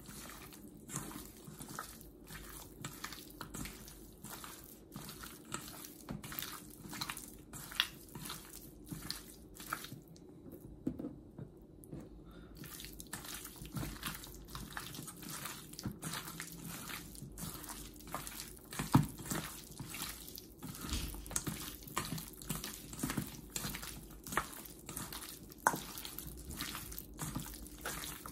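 Hands kneading raw chicken pieces coated in spice powder in a stainless steel bowl: irregular wet squelching and slapping, with a few sharper knocks, the loudest about 19 seconds in. The mixing eases briefly about ten seconds in.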